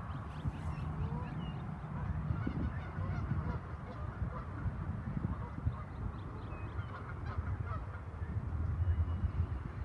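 A flock of geese honking, with many overlapping calls over a steady low rumble.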